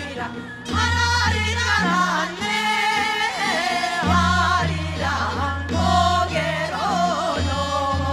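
A group of women singing a Korean folk song (minyo) together into microphones, the melody sliding and wavering in ornamented lines over accompaniment with a low bass line that changes note every second or so.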